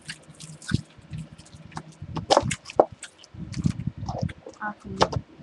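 Wet chewing and lip-smacking of someone eating a chewy toffee candy close to the microphone: a string of short sticky clicks and smacks.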